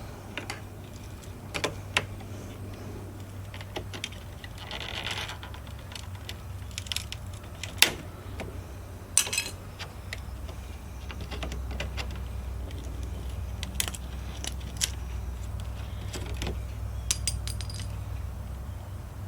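Scattered sharp clicks, ticks and a brief scrape as an old taped-on Cadillac wreath emblem is pried and worked off the car body, over a steady low hum.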